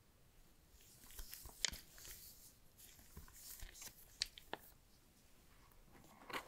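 Paper leaflets handled by gloved hands: faint rustling with scattered small clicks and taps, the sharpest about one and a half seconds in. A short cluster of clicks near the end as a hand reaches into the cardboard box's inner compartment.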